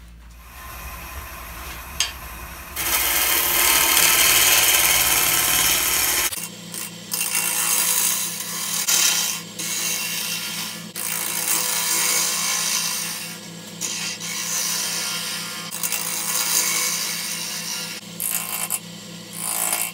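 Wood lathe spinning a chokecherry log while a gouge cuts its side grain: a rough, hissing scrape that comes and goes with each pass, over the steady hum of the lathe. The longest, loudest cut runs from about three to six seconds in.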